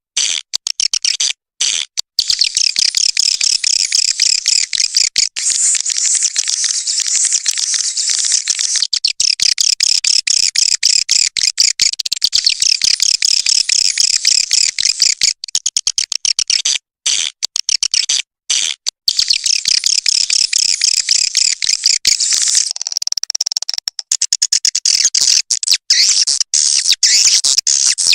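Swiftlet call track, the external lure played outside a swiftlet house: dense, high-pitched twittering and rapid chattering chirps from many swiftlets, with a few brief cut-outs.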